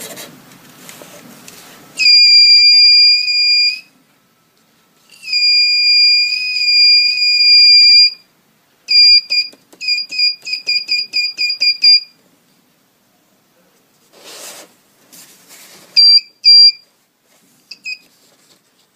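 Homemade sound pencil's buzzer, driven by a 9 V Darlington-transistor circuit, sounding a steady high-pitched tone whenever the pencil tip touches the drawn graphite line. It sounds twice for a few seconds, then in a quick run of short beeps, then in two short beeps near the end. Before the tone there is a scratch of pencil lead on paper.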